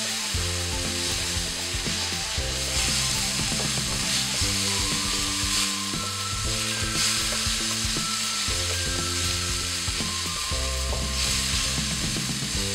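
Onion-garlic paste with turmeric and coriander powder sizzling in hot oil in a nonstick wok while a wooden spatula stirs and scrapes it. The masala is being roasted (bhuna) until golden. Soft background music plays underneath.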